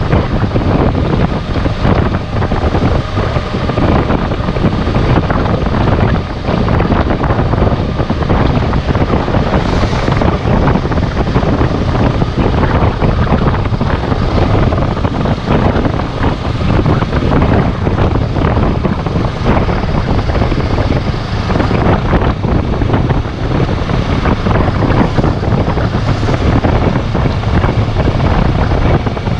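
2017 Kawasaki Z650's parallel-twin engine running through its stock exhaust while riding, mixed with heavy wind buffeting on the camera microphone. The sound stays steady and loud, with no clear revving or gear changes.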